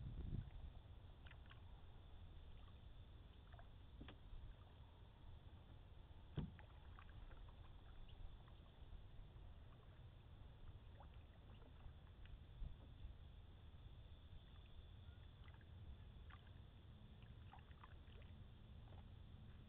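Faint sounds of a canoe being paddled on calm water, with small scattered clicks and drips and one sharper knock about six seconds in.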